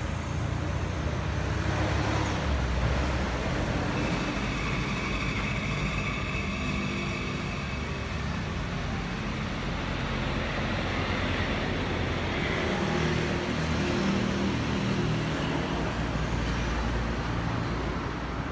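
Compact tractor's diesel engine idling steadily, a low, even chug that holds the same speed throughout.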